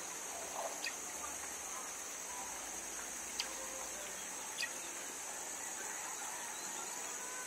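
Quiet supermarket background: a steady high-pitched hiss with three faint light clicks spread through it.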